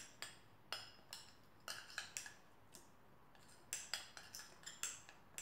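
A spoon stirring in a small glass bowl, clinking lightly against the glass about three times a second with a short pause near the middle, mixing an oil-and-ginger-powder paste.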